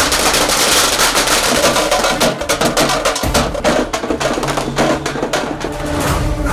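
Firecrackers going off in a rapid, irregular string of sharp cracks, thinning out after about four seconds, over music.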